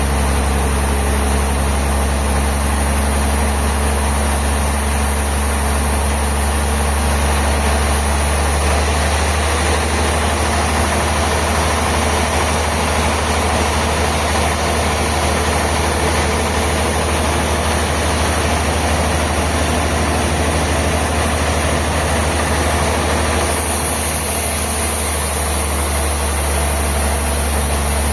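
Heavy sawmill machinery running steadily with a deep hum, its sound shifting slightly about nine seconds in and again near the end.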